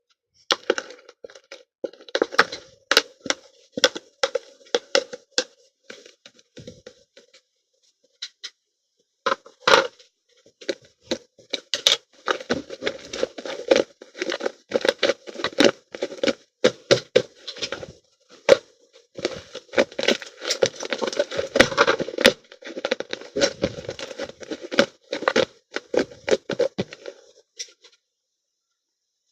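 Slime being squished and kneaded by hand, with rapid crackling pops and clicks. It stops for a couple of seconds about a third of the way in, then goes on more densely.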